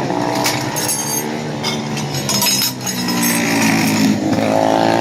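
Small motorcycle engines running at high revs, one rising in pitch about four seconds in as it accelerates. A few sharp clicks and knocks come about a second in.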